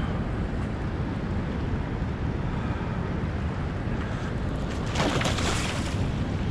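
Choppy, fast-flowing spillway tailwater and wind buffeting the microphone, a steady low rushing noise. About five seconds in there is a brief, louder burst of hiss.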